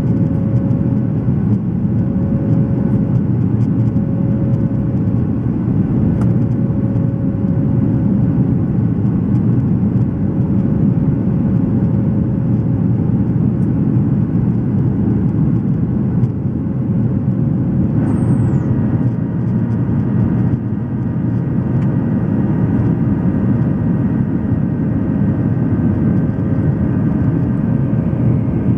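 Cabin noise of an airliner's jet engines after takeoff: a steady, loud rumble of engines and airflow with a steady hum-like tone. About two-thirds of the way through, a set of fainter, higher steady tones joins in.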